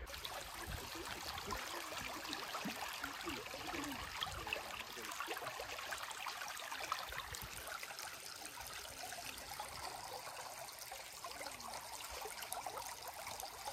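Canal water flowing steadily.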